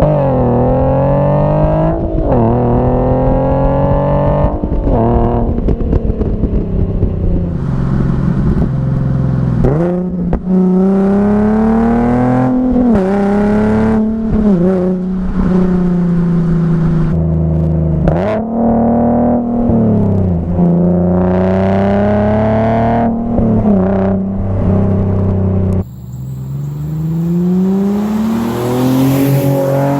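Nissan 370Z's 3.7-litre V6 through an AAM Competition short-tail exhaust, accelerating hard through the gears. The note climbs in pitch and drops sharply at each shift, again and again. Near the end a new run starts after a short break.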